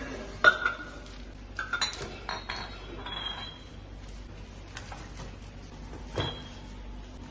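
Dishes and containers clinking and knocking as they are handled. The loudest clink comes about half a second in, followed by a cluster of knocks around two seconds and another near the end.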